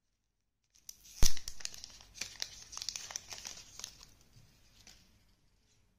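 Thin plastic protective film being peeled off a wireless earbud charging case and crinkling in the hands: one sharp crack a little over a second in, then a few seconds of crackling that dies away near the end.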